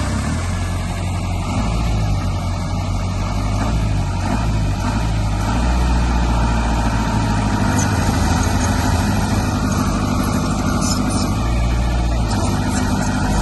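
Heavy diesel engine of construction machinery running steadily under load with a deep rumble, a little louder from about halfway through.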